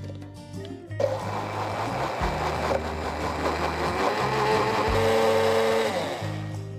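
Hand blender's chopper attachment switched on about a second in and run for about five seconds, churning soapy water into foam to clean the bowl, then switched off near the end.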